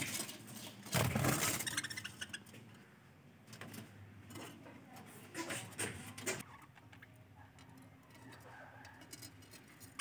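Budgerigars chirping and chattering softly, with a brief rustling noise about a second in.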